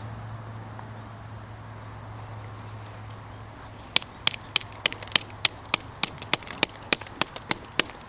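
Folding knife blade slicing through thin paper in quick strokes, each cut a sharp tick, about three a second, starting about four seconds in. Before that, only a faint low hum.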